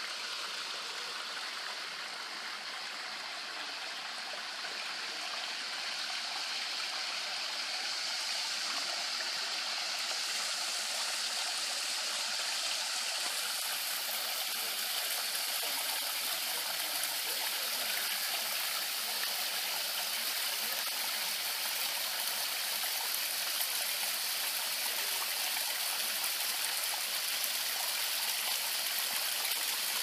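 Water spilling from a rock face and running over gravel into a creek: a steady, even rush of flowing water. It gets a little louder and brighter about halfway through.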